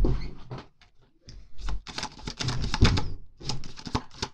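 Tarot cards being shuffled by hand: a dense run of quick papery clicks and riffles, with a short pause about a second in and one louder knock just before three seconds in.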